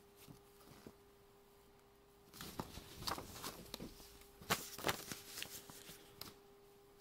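A printed paper sleeve rustling and crinkling as it is taken off a steel DVD case and handled, starting about two seconds in with a few sharper crackles.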